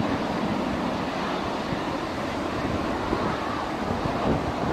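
Steady jet noise from a Boeing 747's four engines at takeoff thrust as the airliner climbs away, heard from behind.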